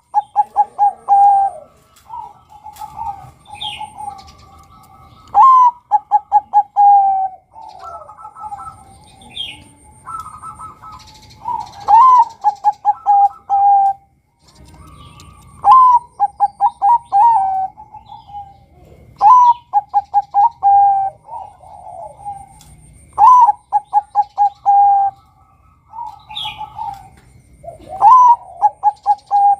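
Male zebra dove (perkutut, Bangkok type) singing its cooing song, seven phrases about every four seconds. Each phrase is a rising opening note, then a quick run of rolling coos, ending on a longer held coo.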